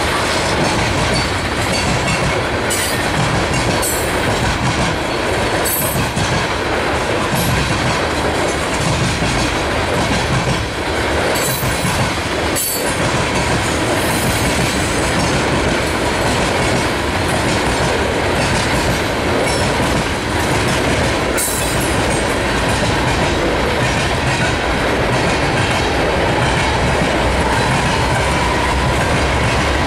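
Freight train tank cars and coil cars rolling past at close range: a steady rumble with the wheels clacking over rail joints, and a few short high-pitched squeals from the wheels.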